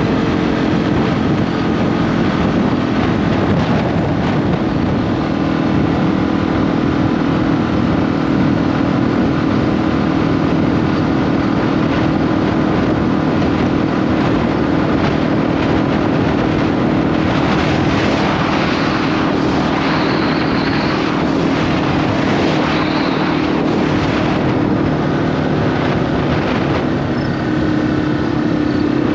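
Wind rushing over the microphone while a 2021 Yamaha XT250's air-cooled single-cylinder engine runs steadily at cruise underneath. The wind noise is heaviest through the middle stretch and partly drowns the engine, which comes through more clearly near the start and end.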